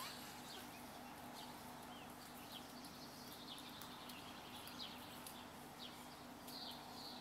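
Faint birdsong: short high chirps scattered throughout, coming in quicker runs near the end, over a faint steady low hum.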